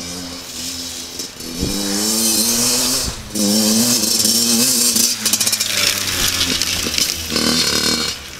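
Yamaha motocross bike riding up close, its engine revving up and down with the throttle, with a short break in power about three seconds in.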